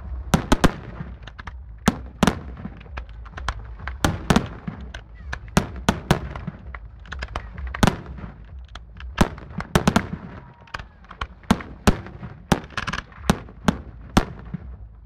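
Aerial firework shells bursting overhead in a long, irregular series of sharp bangs, often two or three a second.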